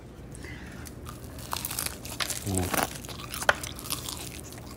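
Crispy Korean fried chicken being bitten and chewed, a run of sharp crunches starting about one and a half seconds in, the loudest about three and a half seconds in.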